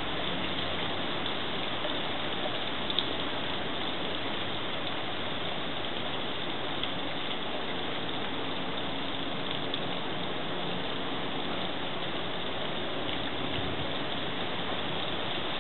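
Steady splashing of a backyard garden fountain, with a few faint ticks.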